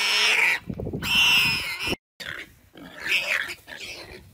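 Warthog squealing in distress while a leopard holds it down: two long, loud, wavering high-pitched squeals. The sound cuts out briefly about two seconds in, and quieter, broken squeals follow.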